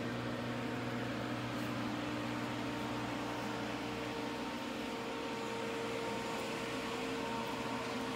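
Steady hum and whirr of a powered-up Haas CNC machine's control cabinet, its cooling fans and electronics running, with a few faint held tones that change slightly as the view moves.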